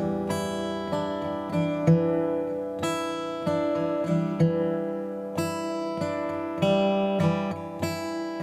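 Background music: acoustic guitar strumming chords, with a fresh strum about every half second to second.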